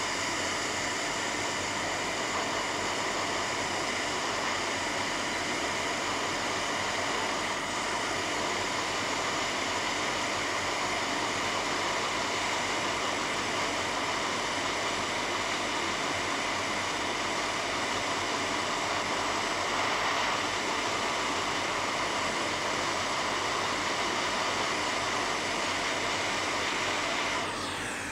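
Hot-air rework station blowing steadily on a phone's power-amplifier (PFO) chip during reballing and fitting: a rushing air noise with a faint steady whine. It winds down a little before the end.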